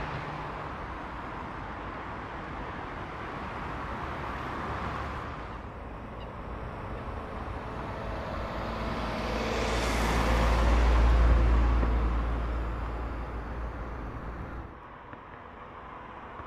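Cars driving on a wet road: steady tyre and engine traffic noise. One vehicle passes close about ten seconds in, swelling to a peak and fading. The background changes abruptly twice.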